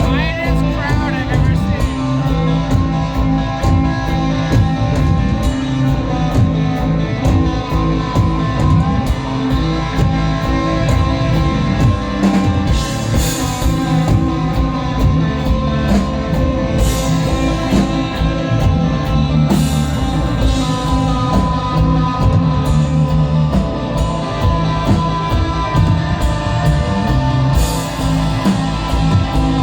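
Live instrumental desert rock band playing at full volume: electric guitar and bass holding sustained notes over a steady drum-kit beat.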